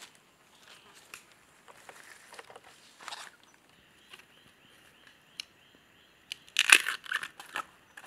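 Dry leaf litter and plant stems rustling and crackling as bamboo shoots are handled on the forest floor, with a louder burst of crunching lasting about a second near the end.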